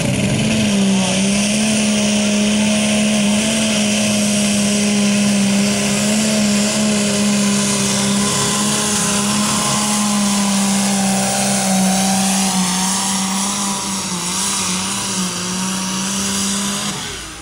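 Pulling tractor's engine revving up and held at a steady high, full-throttle pitch as it drags a weight-transfer sled down the track, dropping away just before the end.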